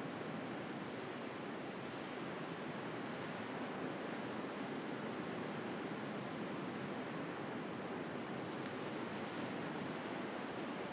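Ocean surf washing steadily on the shore, a continuous hiss, with a brighter wash of a wave about nine seconds in.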